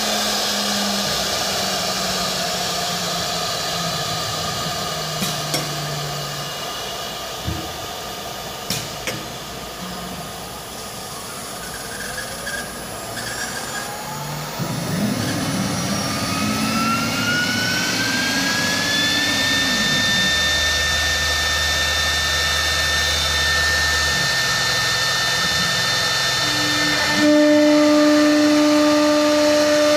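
Three-spindle CNC wood router running, with a steady rushing noise from its spindles and shifting low motor hums as the gantry moves. About halfway a whine rises in pitch and then holds steady, like a spindle spinning up to speed, and near the end a louder steady hum comes in.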